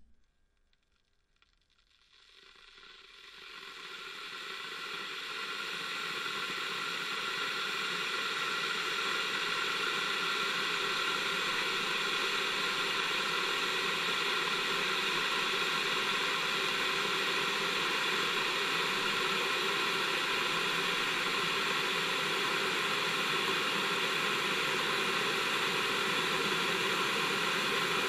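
Electric kettle heating water: a hiss that swells over the first several seconds and then holds steady.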